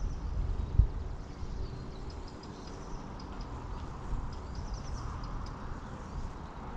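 Outdoor ambience by the water: a steady low wind rumble on the microphone, faint bird chirps, and a single sharp knock about a second in.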